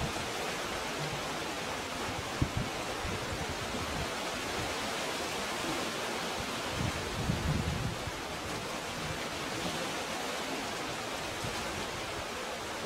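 Steady rushing wash of sea water in a rocky, pebble-floored cove, with a low rumble of wind on the microphone about seven seconds in.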